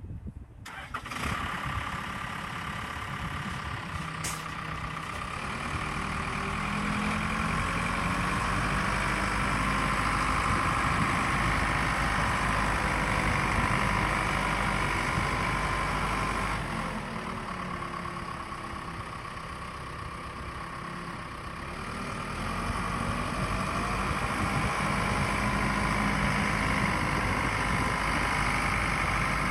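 Case 580 Super L backhoe loader's diesel engine running while the machine is driven. The engine note climbs and holds, eases off for a few seconds about two-thirds through, then picks up again.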